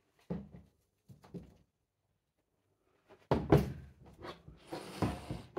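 A few light knocks as plastic jugs are moved, then a wooden soap loaf mould set down on a table with a loud thunk a little over three seconds in, followed by a scraping as it is pulled across the tabletop.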